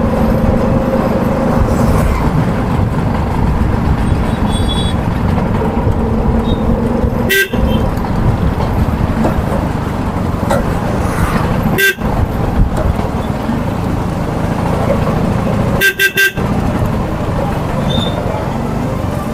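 Busy street traffic: vehicle engines running steadily, with horns honking now and then.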